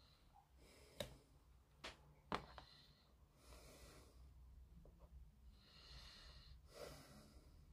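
Faint workbench handling: three light clicks and taps in the first two and a half seconds as the brush-cap of a liquid poly cement bottle and tweezers are handled. Then two soft breaths out through the nose.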